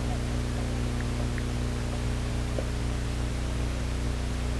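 Steady low hum with an even hiss over it, no distinct events.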